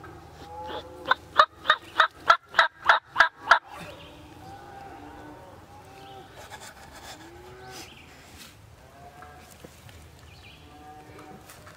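A run of about nine loud turkey yelps, roughly three a second, starting about a second in and lasting some two and a half seconds. Afterwards there are only a few faint, soft notes.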